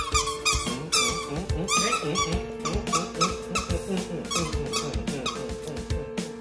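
A puppy growling and yipping in play over a toy, short calls about twice a second that thin out near the end, with background music underneath.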